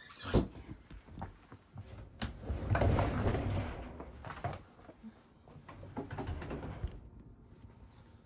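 Knocks and handling noise: one sharp knock just after the start, then about a second of rustling and scraping, then a few lighter knocks.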